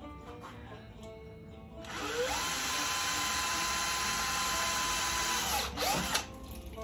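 Guitar music gives way about two seconds in to a small electric motor spinning up to a steady high whine with a loud rushing noise. It runs for about three and a half seconds, winds down, then spins up and down once more briefly.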